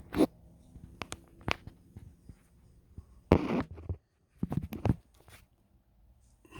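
Snoring: short noisy breaths about three seconds in and again about a second later, with a few sharp clicks before them.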